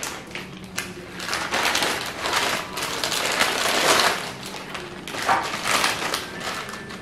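Lay's potato chip packets crinkling and rustling as they are handled and torn open, with the chips shifting inside; the crackling is loudest about four seconds in.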